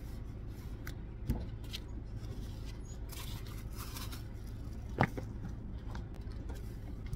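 Sneakers being set down on asphalt and laced up: a few soft knocks, the clearest about five seconds in, and a brief rustle, over a steady low hum.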